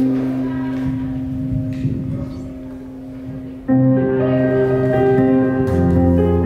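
Instrumental music with long held tones. It thins out and grows softer in the first half, then comes back in suddenly and loudly a little over halfway through.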